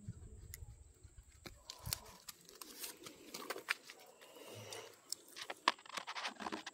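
Dry leaf litter and twigs rustling and crackling, with many scattered sharp snaps that grow busier after a couple of seconds. A low rumble runs under the first second or so.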